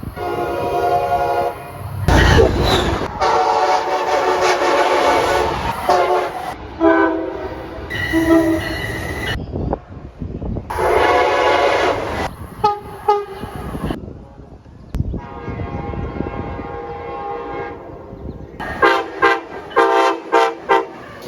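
Train horns sounding in a string of separate clips: several long multi-note chords, each ending abruptly. A brief loud rush of noise comes about two seconds in, and near the end a horn gives a quick series of short blasts.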